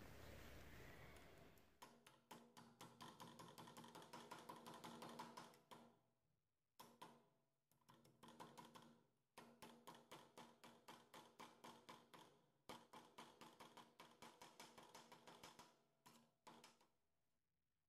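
Quick, light hammer taps on a thin brass dome, about four or five a second in runs of a few seconds separated by short pauses, each tap with a brief metallic ring: the dome's dents being hammered out from the inside.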